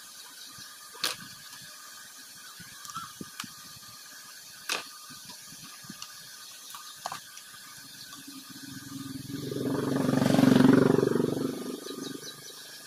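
Scattered light clicks and taps of metal tweezers and multimeter probes on a phone circuit board, then a passing motor vehicle's engine that swells to the loudest sound about ten seconds in and fades away.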